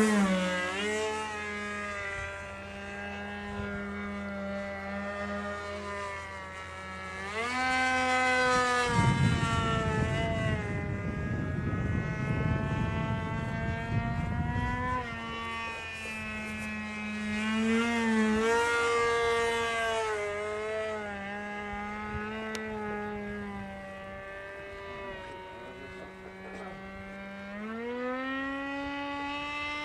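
Radio-controlled model dogfighter plane's tuned engine and propeller running at high revs throughout, its pitch swooping up and down as the plane dives, climbs and passes. A low rumbling noise joins it for several seconds in the middle.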